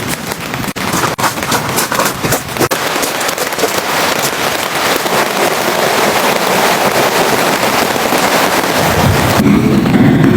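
Rain hitting a hard surface close by: first a patter of separate sharp drops, then a dense, steady downpour that grows louder. Near the end the sound turns lower and duller.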